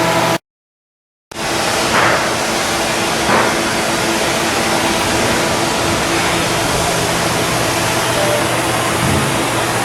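Loud, steady machinery noise with a low hum, cut off by a second of complete silence about half a second in, with two short brief accents after it.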